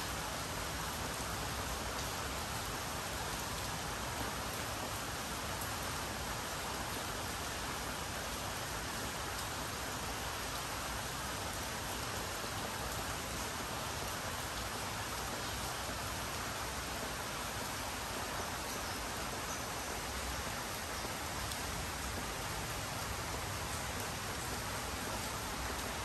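Rain falling steadily, an even hiss that holds the same level throughout.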